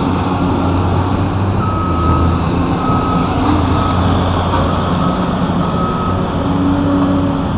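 Diesel engine of a backhoe running steadily at an excavation, with a reversing alarm beeping about once a second from a little way in.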